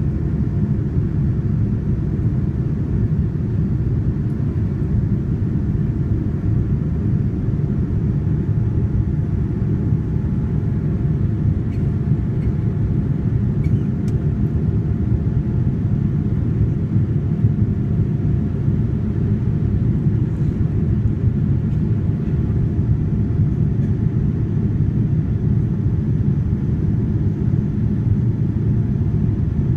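Cabin noise of a Boeing 787-9 airliner climbing out after take-off: a steady low rumble of the engines and rushing air, with a faint steady whine above it.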